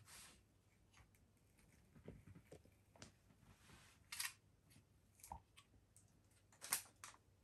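Faint handling sounds as a new felt strip is laid into a keyboard: a few light taps and short rustling scrapes, the loudest a little after halfway and again near the end.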